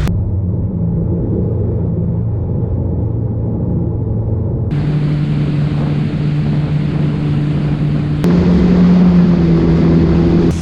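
Yamaha Waverunner jet ski engine running steadily. Its tone and level change abruptly twice.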